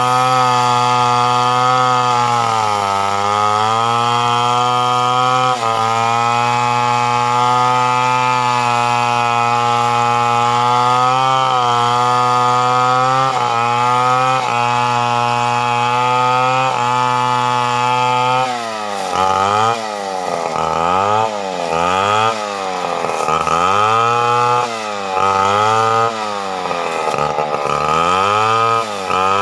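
Stihl 070 two-stroke chainsaw running at high revs, cutting through teak wood, its pitch sagging briefly a few times under load. About 18 seconds in the revs begin to drop and rise again in quick swings, about once a second.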